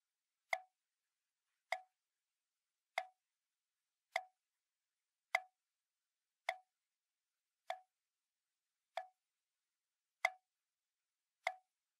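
A soft, hollow plop sound effect repeated about ten times at an even pace, a little slower than once a second, each one short and identical. It works as a comic tiptoeing cue.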